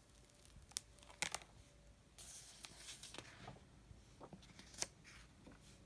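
Hardcover picture book being opened and its pages turned: a few faint sharp clicks and taps, then paper rustling and sliding, with another sharp click near the end.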